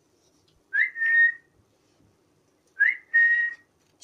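A person whistling twice to call a puppy, each whistle a quick upward slide into a short held note.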